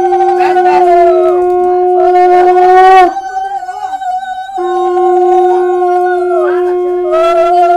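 Conch shells (shankha) blown in long, steady notes, two at different pitches at once. The lower note breaks off about three seconds in and starts again about a second and a half later, while the higher one runs on.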